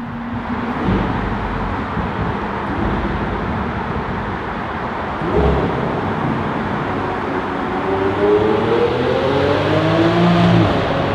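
Supercar engine accelerating over road noise, its pitch climbing steadily in the second half and dropping near the end.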